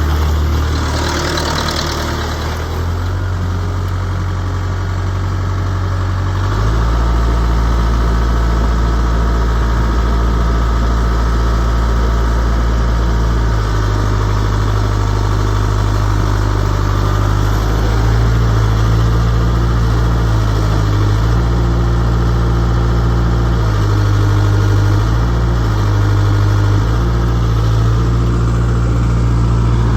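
Case 85XT skid steer's diesel engine running, its speed stepping up about six seconds in and shifting several times after. A brief hiss comes in the first couple of seconds.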